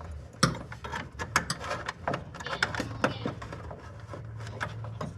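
Irregular clicks, knocks and rattles from hands working a cable and hardware in an electrical panel, over a low steady hum.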